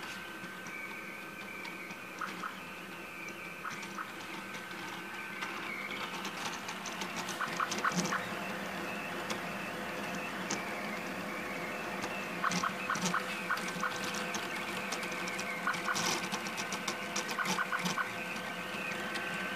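Delta 3D printer running a print: a steady whine from its stepper motors and cooling fan, with short clusters of ticks every few seconds as the print head moves.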